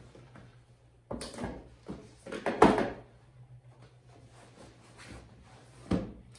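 Household knocks and bumps of things being handled in a small room, like a door, drawer or cupboard being moved: a cluster of knocks about a second in, the loudest around two and a half seconds in, and one last thump near the end.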